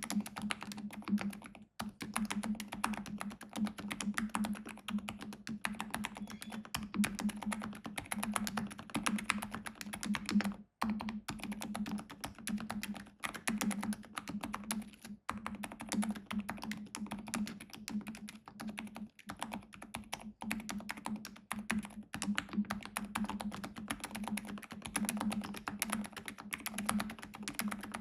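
Rapid, continuous typing on a Keychron K10 full-size mechanical keyboard with Silent Red linear switches, a dense run of soft, damped keystrokes. There are a few brief pauses, at about 2, 11 and 15 seconds in.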